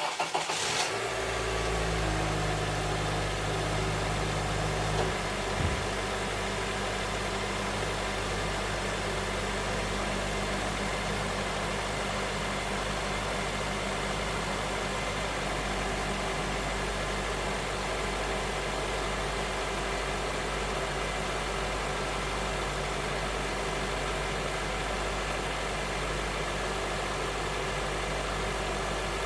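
Honda Element's 2.4-litre four-cylinder engine idling steadily, with an engine noise that is taken for rod knock.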